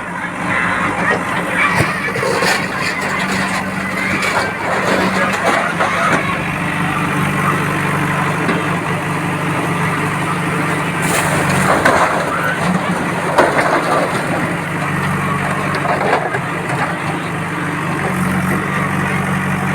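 Heavy bulldozer engine running steadily, with voices of people talking over it.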